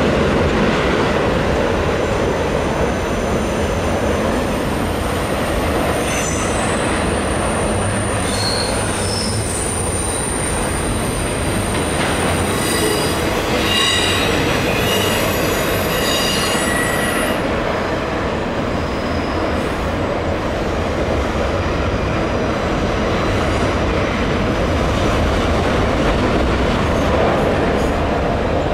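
Double-stack container freight train's cars rolling past on curved track, with a steady rumble of steel wheels on rail. From about six seconds in until about seventeen seconds, the wheels squeal in several high tones at once as their flanges grind through the curve.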